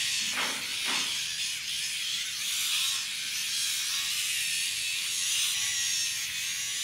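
Small battery-powered facial hair remover buzzing steadily as it is run over the upper lip, its high whine wavering slightly as it presses on the skin.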